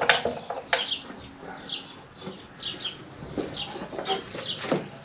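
A bird chirping over and over in short, high, falling notes, with a few sharp clicks and knocks from handling parts near the start and near the end.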